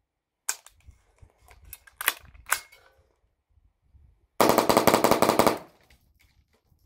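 Shots from an AR rifle running a CMMG .22 LR conversion kit with a Franklin Armory binary trigger, emptying the magazine. A few single shots come in the first three seconds, then a fast string of shots lasting just over a second, the loudest part.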